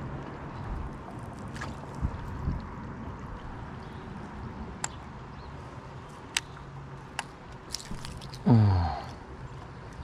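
Water sloshing and dripping around a small boat, with a few light knocks and clicks. Near the end there is a short falling groan from a person.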